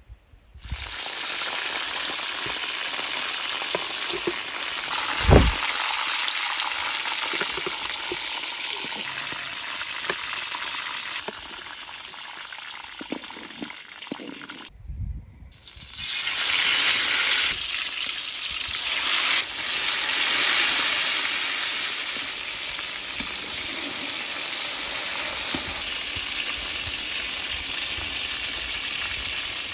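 Chicken drumsticks frying in hot oil in a large pot: a steady sizzle that eases off for a few seconds in the middle, drops out briefly and comes back louder. A single low thump about five seconds in.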